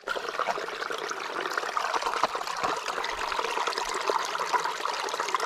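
Shallow spring water trickling and splashing over rocks and into a clear plastic water bag held in the flow as it fills.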